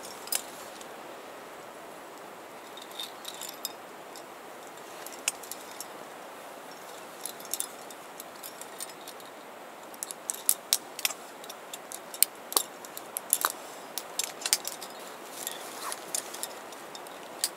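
Metal climbing hardware, carabiners and quickdraws hanging from a harness, clinking and jingling in scattered sharp clicks that come thickest from about ten seconds in, over a steady faint hiss.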